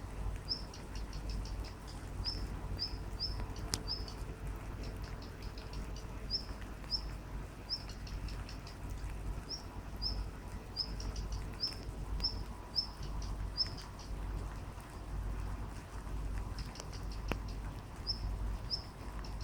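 Rain pattering, with a small bird chirping over it: short, high chirps about two a second, which stop for a couple of seconds partway through and then resume.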